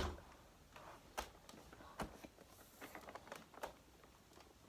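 A few faint, scattered clicks and light knocks from a vacuum cleaner's parts being handled.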